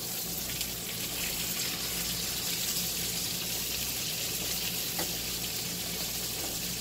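Breaded veal cutlets sizzling as they fry in a pan on a gas stove, a steady hiss, with a light click about five seconds in.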